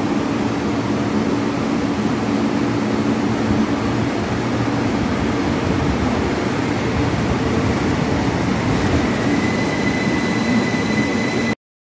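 Algiers Metro train running alongside an underground station platform: a loud steady rumble of wheels and motors, with a high steady whine coming in near the end. The sound cuts off abruptly just before the end.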